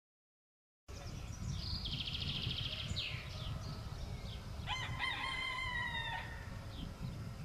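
A rooster crows once, about five seconds in, a single drawn-out call that falls slightly in pitch, after small birds sing a buzzy trill. A low rumble runs underneath, and the sound only begins about a second in, after silence.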